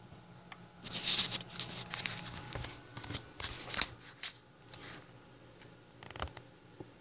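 Paper sticky note and pen being handled close to the microphone: scratchy rustling, loudest about a second in, then scattered clicks and short rustles as the note is set down.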